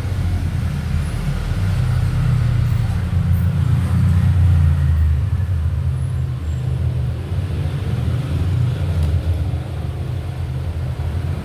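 Steady low rumble, swelling a little around the middle.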